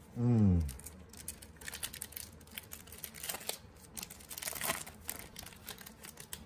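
A brief low vocal murmur falling in pitch right at the start, then soccer trading cards being handled and flipped through: a run of light clicks, slides and crinkles of card and packaging.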